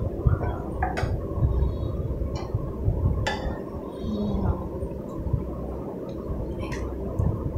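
Kitchen utensils, a steel ladle and a wooden spatula, clinking against a ceramic bowl and steel pan while rice is mixed with tamarind paste: three sharp clinks, about a second in, a little past three seconds and near the end, over a low steady hum.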